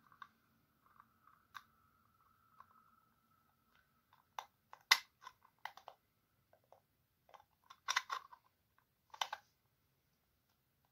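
Clear plastic toy capsule being worked shut by hand around a small figure: scattered plastic clicks and crackles, the loudest about five, eight and nine seconds in.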